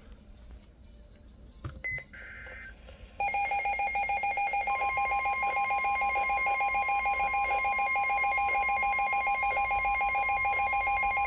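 Weather alert radio going off for a severe thunderstorm warning. About two seconds in comes a brief burst of data chirps. About a second later a loud, rapidly pulsing alarm tone starts, and a steady higher tone joins beneath it.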